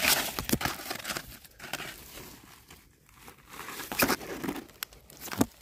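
Dry, fallen dipterocarp leaves (sabaeng and yang) crackling and rustling as gloved hands push through the leaf litter and pull up a small mushroom. The crackles are thick at the start and again after about four seconds, with a quieter stretch in between.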